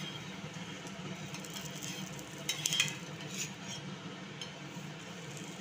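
Egg-stuffed chapati frying in ghee on a dosa tawa, a steady sizzle, with a steel spatula clinking and scraping against the pan a few times about two and a half to three seconds in.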